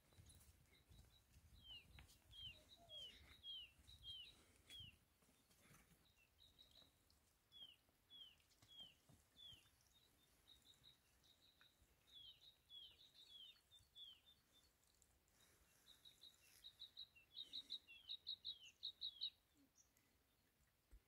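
A small bird chirping repeatedly: short, quickly falling high chirps and brief notes, quickening into a fast run of notes near the end.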